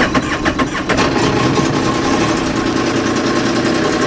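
An engine idling steadily, with a quick run of clicks and knocks during the first second.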